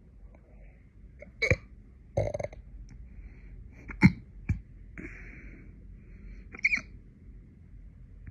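A woman hiccuping about five times, unevenly spaced, each a short sharp catch in the throat, the sharpest one about halfway through, with faint breathing between.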